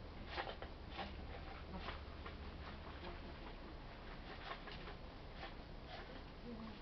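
Faint, irregular ticking clicks, about one or two a second, over a low steady hum that fades out about halfway through.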